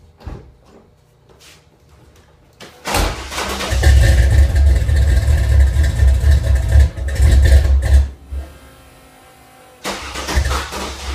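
Engine being cranked by its starter without catching: a long attempt of about five seconds starting about three seconds in, then a second attempt near the end.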